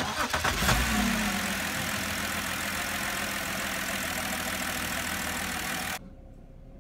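BMW 328xi's 3.0-litre inline-six running with a newly replaced ignition coil fitted; loud at first, it settles into a steady idle within about a second. The level drops sharply near the end.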